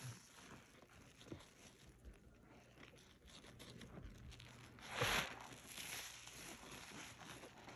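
Soap-loaded sponge squeezed in rubber-gloved hands: quiet crackling of a dry lather, with one louder squeeze about five seconds in.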